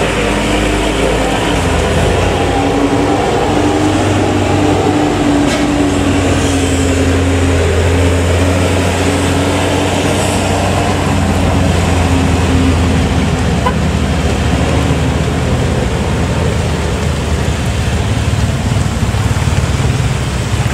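Diesel engine of a tanker truck labouring up a steep hairpin bend, a steady low drone that is strongest in the middle and eases off towards the end, with other cars and motorbikes running alongside.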